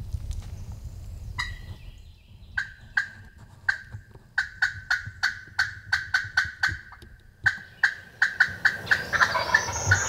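A hunter's call sounding a run of short, sharp notes that speed up, break off and speed up again, to strike up a gobbler. Near the end a wild turkey gobbler gobbles in answer.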